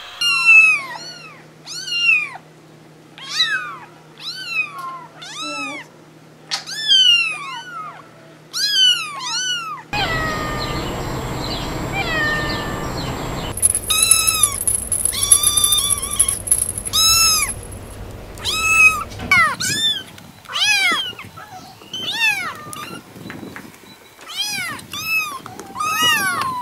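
Young kittens meowing again and again: short, high-pitched mews that rise and fall in pitch, about one a second, from several different kittens in turn.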